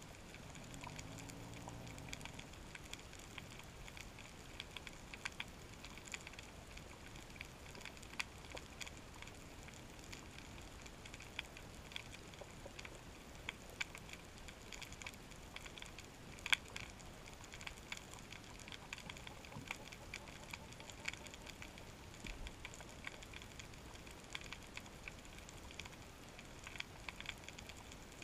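Snapping shrimp crackling underwater: a dense, irregular stream of sharp clicks with no rhythm, one louder snap a little past halfway. A brief low pitched sound comes about a second in.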